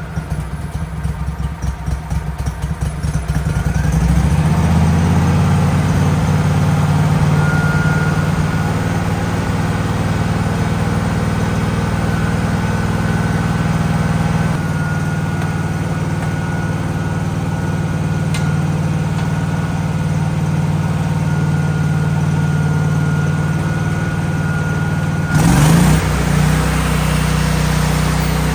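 Gasoline engine of a Miller Bobcat 250 welder-generator running steadily. Its speed changes about four seconds in and again about halfway through. A brief loud burst comes near the end.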